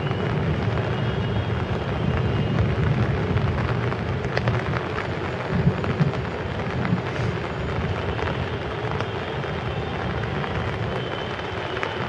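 Steady rain during a thunderstorm over a continuous low rumble, with a few sharp taps about halfway through.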